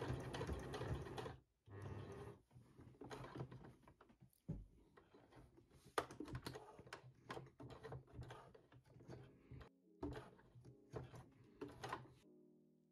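Domestic sewing machine stitching thin merino wool knit. A steady run of stitching stops about a second and a half in, comes back in a short burst, then gives way to slower, uneven stitching with irregular clicks.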